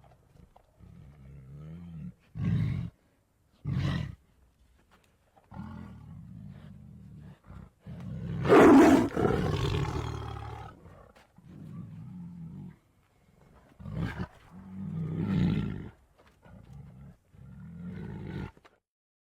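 Were-cougar creature sound effects: a string of separate big-cat growls and snarls with short silent gaps between them, the loudest and longest a roar about eight and a half seconds in.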